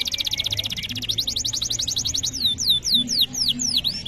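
Domestic canary singing: a very rapid high trill, a short break about a second in, then another fast trill that slows into a few long downward-sweeping notes near the end.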